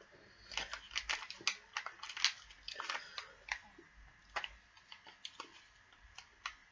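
Plastic candy-whistle packaging being handled and torn open in the hands: scattered, irregular crinkles and clicks.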